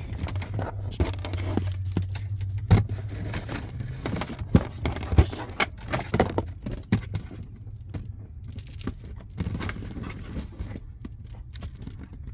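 Hands handling RCA cables and plastic dash trim: irregular clicks, knocks and scrapes, with a steady low hum for the first few seconds.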